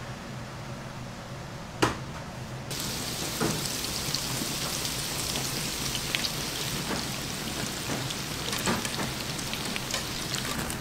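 Hot oil sizzling and crackling with many small pops as breaded croquettes deep-fry in a large fryer, starting abruptly about two and a half seconds in. Before that there is only a low steady hum and a single sharp knock.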